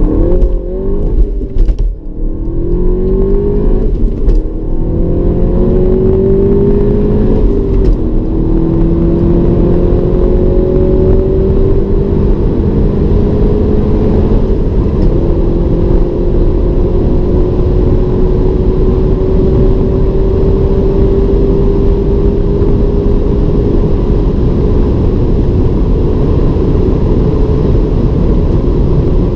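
SEAT Leon Cupra ST 280's turbocharged 2.0-litre four-cylinder engine, heard inside the cabin under hard acceleration. The engine note rises through each gear and drops at quick upshifts about 2, 4 and 8 seconds in and again about halfway through. It then climbs slowly in a high gear over steady wind and road noise as the car nears 240 km/h.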